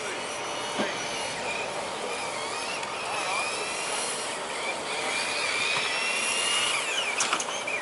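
Brushed electric motors of several RC touring cars whining, the pitch rising and falling as the cars accelerate and slow around the wet track, over a steady hiss. A few sharp clicks come about seven seconds in.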